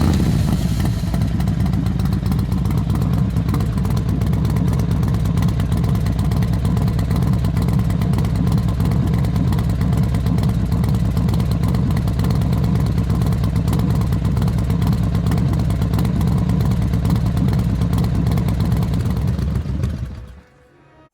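An engine starts and then runs steadily at a constant pitch for about twenty seconds before cutting out near the end.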